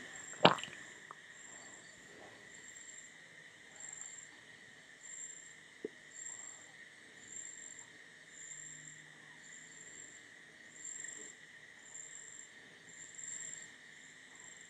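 Crickets chirping steadily, a regular high-pitched chirp a little under twice a second. A sharp knock about half a second in, then soft scraping of a wooden spatula stirring potato curry in a pan.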